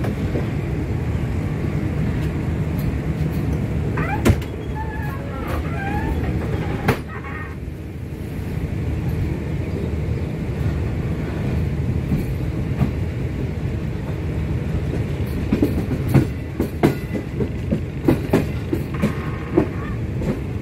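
Awam Express passenger train running along the track, heard from on board: a steady rumble of wheels on rails, broken by sharp clicks and knocks that come thickest in the last few seconds.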